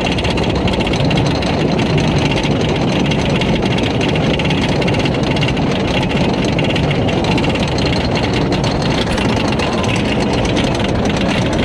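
Wicker Man wooden roller coaster heard from on board: the train running along its wooden track in a loud, steady rumble, with wind on the microphone.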